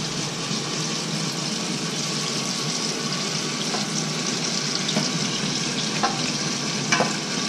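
Chicken deep-frying in a pan of hot oil, a steady sizzle, with a couple of sharp clicks near the end.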